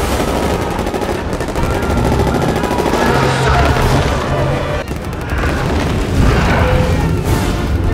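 Film battle sound mix: rapid, dense gunfire and booms over a heavy low rumble, with music underneath.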